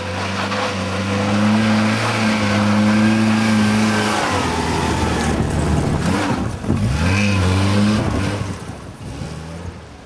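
Lada 110-series hatchback's engine pulling under load up a dirt slope at steady revs. About halfway through, as the car passes close by, the revs rise and fall several times, and the sound then fades as it drives away.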